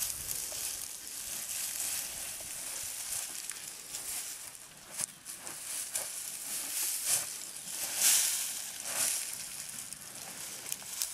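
Dry grass, twigs and dirt crunching and rustling close up as an African elephant moves through them with her feet and trunk, with louder crackles between about five and nine seconds in.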